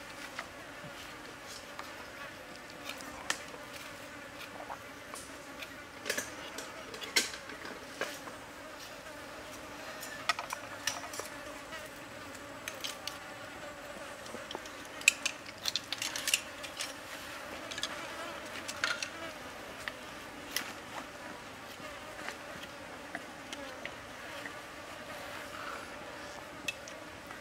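Steady buzzing of insects, with scattered short sharp clicks and scrapes of a knife shaving and splitting a thin bamboo strip.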